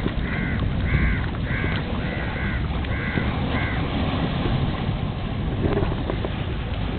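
A bird calling in a quick run of about seven short, arched calls, roughly two a second, stopping about four seconds in. Wind rumbles on the microphone throughout.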